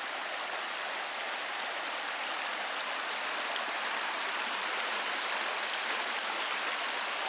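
Shallow mountain creek running over a rocky bed: a steady rush of water, growing a little louder.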